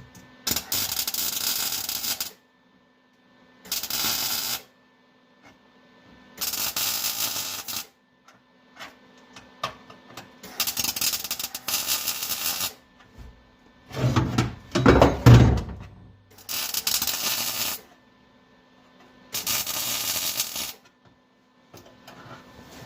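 Welding arc crackling in about seven short bursts of one to two seconds each, with pauses between them: tack and stitch welds laid on sheet-metal floor patches.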